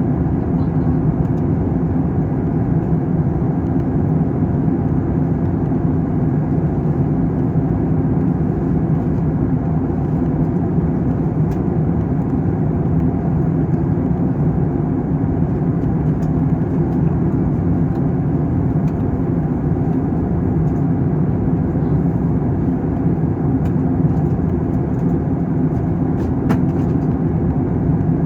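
Jet airliner cabin noise in flight: a steady low drone of engines and rushing air, heard from inside the cabin.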